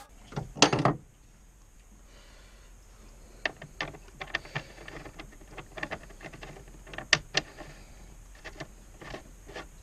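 Parts and tools being handled during hands-on work on the truck's oil cooler lines: a short rustling knock near the start, then scattered light clicks and knocks of metal and plastic.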